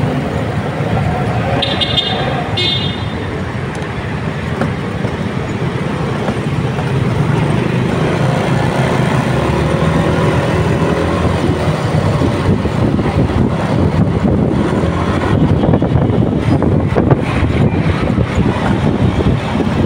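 Steady road and wind noise of a motorcycle ride through city traffic, with a low rumble of engines. A vehicle horn toots twice in quick succession about two seconds in. Wind buffets the microphone harder in the second half.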